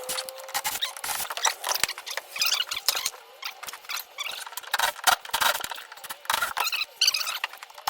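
Hand work on the boat's floor hatch doors: a run of irregular clicks and knocks with short squeaks, typical of screws being backed out of the wooden floor and the doors being worked loose. A short whine fades out within the first half second.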